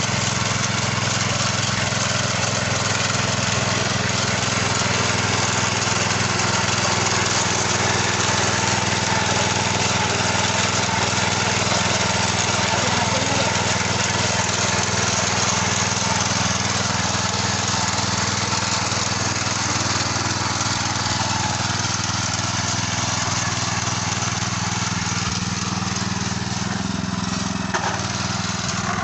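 Mini tiller's small air-cooled petrol engine running steadily under load as its rotating tines churn through hard, sticky soil.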